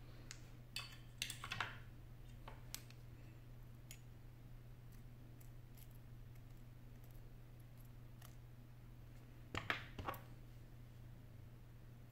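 Small clicks and taps of a precision screwdriver and tweezers on the metal brackets and screws inside an opened iPhone 8 Plus: a short cluster of clicks about a second in, another near ten seconds, and scattered faint ticks between.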